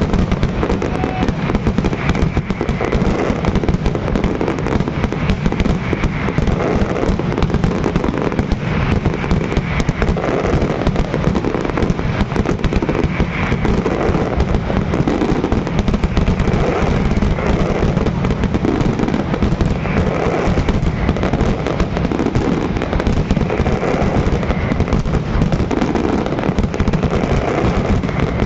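Aerial fireworks display in a dense barrage: a rapid, unbroken stream of bangs and crackling from many shells bursting at once.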